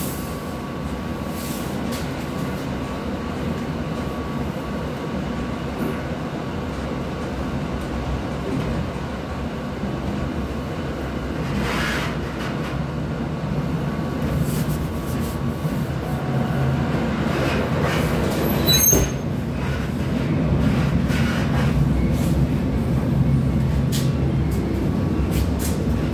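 Running noise heard from inside a moving electric commuter train: a steady rumble of wheels on rail that grows somewhat louder in the second half, with one brief sharp click about three-quarters of the way through.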